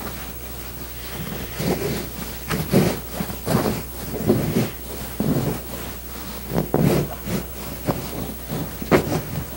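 Fabric rustling and brushing as a channel-stitched upholstery cover is handled and folded back over cotton batting, in irregular bursts with a few sharp clicks, over a steady low hum.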